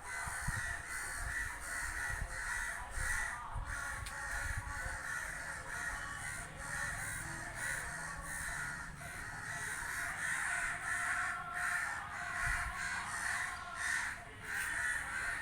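A flock of crows cawing, many short calls overlapping one another without a break.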